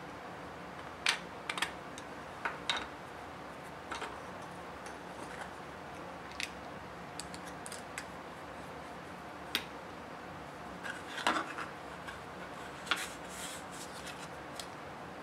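Scattered clicks, taps and rubs of 3D-printed plastic featherboard parts and metal T-nut and thumb-knob hardware being handled and fitted together on a wooden bench. A quick cluster of clicks comes about eleven seconds in and another about thirteen seconds in.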